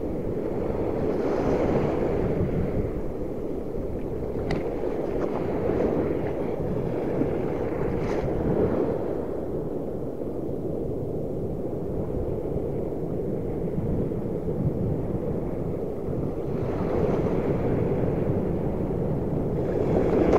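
Surf washing in the shallows with wind buffeting the microphone, a steady rush that swells and eases every few seconds. A faint click comes about four seconds in.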